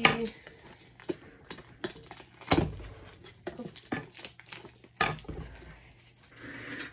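Plastic shrink wrap being cut, pulled and crinkled off a cardboard box, with scattered knocks and clicks as the box is handled and two heavier thumps about two and a half and five seconds in.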